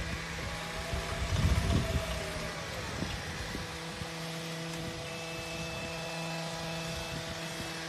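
Gomanlift X08 crawler aerial platform driving on its rubber tracks, its motor running with a steady, multi-pitched hum. A whine rises and falls over the first couple of seconds.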